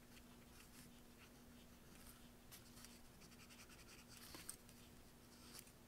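Faint scratching of a mechanical pencil's graphite on paper: a run of short, quick strokes at irregular intervals, over a faint steady hum.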